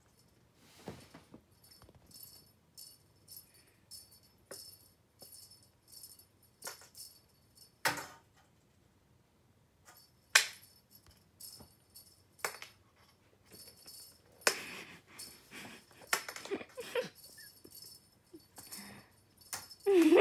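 Light metallic jingling repeated about twice a second, like a small bell or tambourine, broken by a few sharp knocks.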